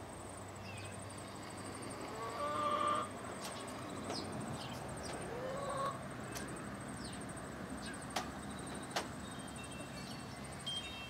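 Tabby cat meowing twice: a held call about two and a half seconds in, then a rising one near the six-second mark.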